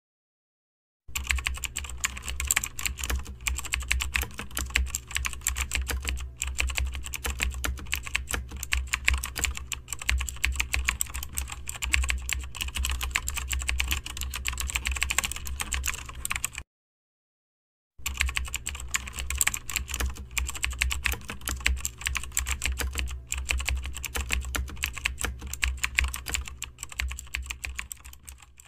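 Computer keyboard typing: a fast, continuous run of keystrokes starting about a second in. It breaks off for about a second and a half midway, then resumes.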